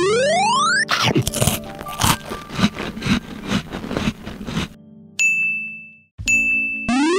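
Cartoon sound effects: a rising electronic sweep, then about four seconds of crunchy munching as a wafer ice-cream cone is bitten and chewed, a short high ding, and another rising sweep near the end.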